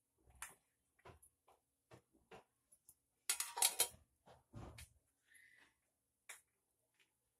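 A few light taps and clicks, then a flat aluminium plate set down over an aluminium kadai as a lid, clattering metal on metal about three seconds in and again briefly about a second later.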